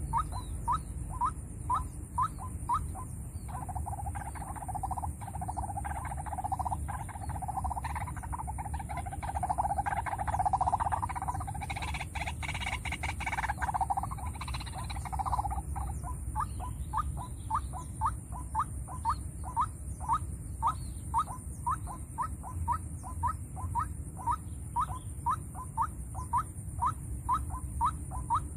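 White-breasted waterhen (ruak-ruak) calling: a steady run of short rising notes, about two a second. From about 3 s to 15 s these give way to a louder, unbroken stretch of calling.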